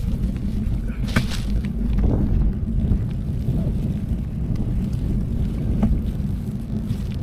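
Steady low rumble of wind on the microphone and tyre noise as a loaded touring bicycle rolls along a paved road, with a few short clicks about a second in, at about two seconds and near six seconds.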